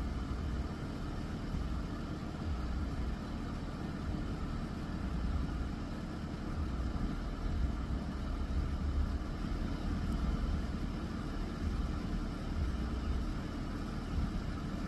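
Steady low engine rumble, like a vehicle idling, with a faint even hiss above it.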